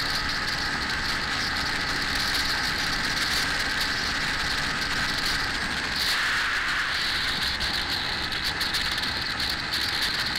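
Motorcycle riding at a steady highway speed: engine, tyre and wind noise heard from the rider's camera, with a brief rise about six seconds in.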